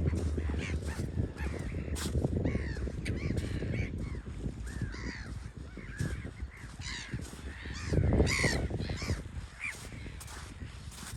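Seabirds calling, many short harsh calls overlapping, with one louder call about eight seconds in, over a steady low rumble.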